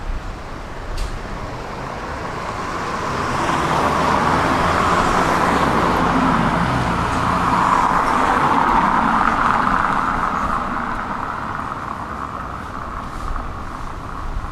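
A car drives past; its sound swells over a few seconds, peaks in the middle and then fades away.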